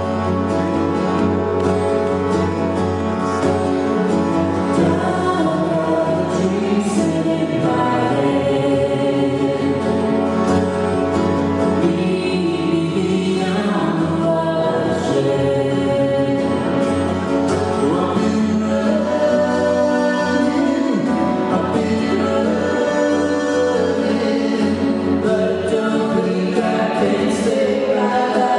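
A live band playing a song, with sung vocals over instrumental accompaniment.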